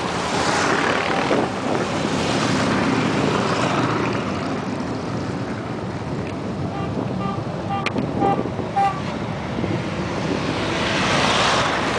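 Harley-Davidson motorcycles riding past in a parade, their engine noise swelling as each passes, loudest near the start and again near the end. About halfway through comes a quick run of short horn toots.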